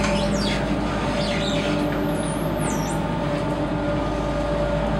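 Engine of a Walt Disney World Friendship water taxi running steadily, a low rumble with a held hum. About two seconds in, a brief high warbling whistle rises and falls over it.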